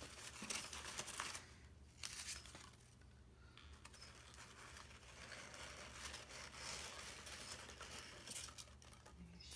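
Foam packing peanuts and a styrofoam liner rustling and scraping faintly as hands dig through them in a shipping box, with scattered small clicks and crackles. A steady low hum sits underneath.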